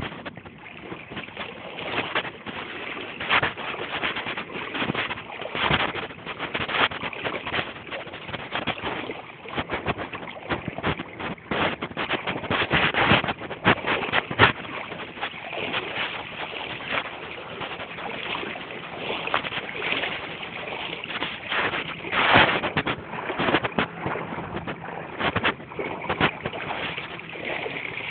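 Floodwater of the swollen Kenai River rushing and splashing, with irregular surges and splashes throughout.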